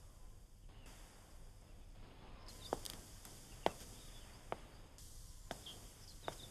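Faint footsteps on a tiled floor: slow, single steps about a second apart, starting about two and a half seconds in, over a quiet background hiss.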